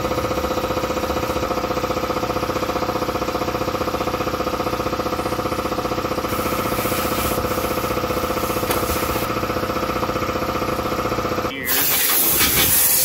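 A machine runs steadily with a fast, even pulsing hum. About eleven and a half seconds in it cuts off suddenly and gives way to a louder, steady hiss.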